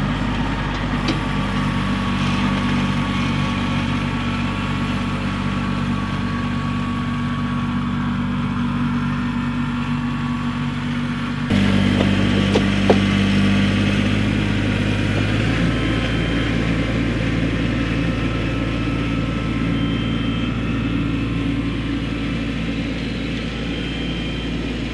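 Kubota B2301 compact tractor's three-cylinder diesel engine running steadily while it drags a box blade over loose dirt. About halfway through the engine gets abruptly louder and closer, with one sharp click a second later, then eases off slightly toward the end.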